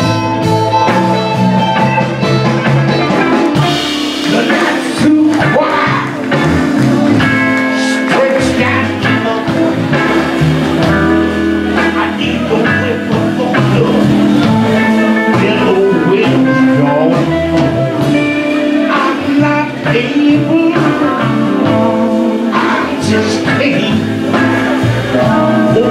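Live blues band playing a song: electric guitars, keyboard, fiddle, bass and drums, with a man singing lead.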